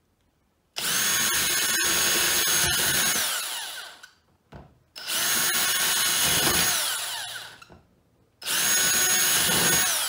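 Cordless drill with a 5 mm bit drilling a hole through a plastic wheelie-bin lid, run in three bursts of about three seconds each, the motor whine dropping as it winds down after each.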